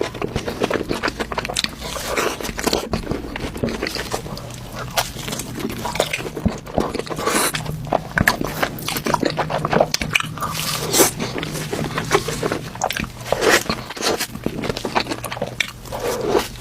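Close-miked eating sounds: biting and chewing with repeated crunches and crackles at an irregular pace, with a few louder bites.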